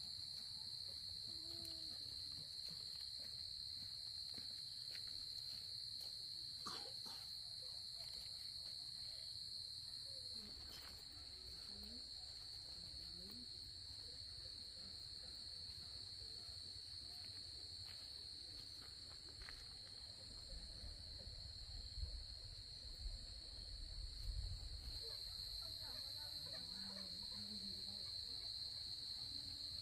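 Insects chirring in a steady, continuous high trill. About two-thirds of the way through comes a low rumble with a few soft thumps.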